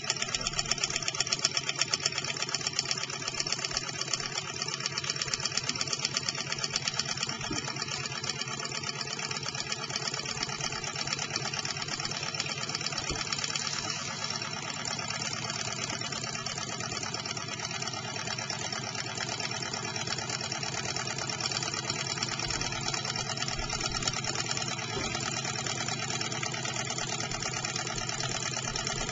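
Small model Stirling engine running on its own heat, its piston and crank linkage making a rapid, even mechanical clatter.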